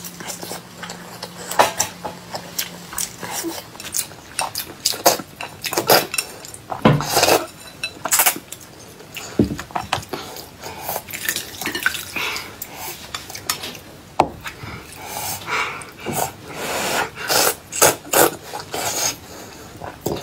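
Eating at the table: chopsticks clicking irregularly against glass bowls and plates, mixed with biting and chewing.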